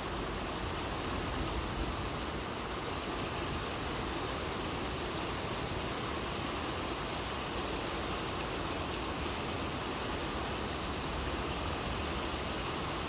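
Heavy rain falling steadily, a constant even hiss of rain with no let-up.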